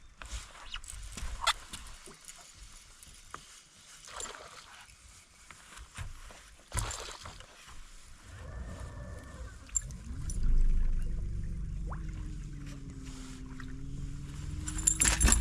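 Knocks and splashy water noise around a fishing boat. About ten seconds in, a boat motor starts and keeps running with a steady low rumble and a slowly wavering pitch. A brief metallic jangle comes near the end.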